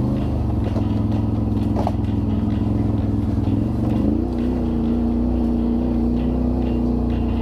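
Vehicle engine running steadily, its pitch stepping up a little about four seconds in and then holding.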